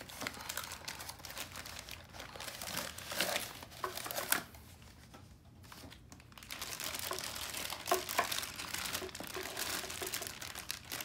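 Brown paper packaging and clear plastic bags crinkling and rustling as they are handled, with a quieter pause about halfway through and a few sharper crinkles around it.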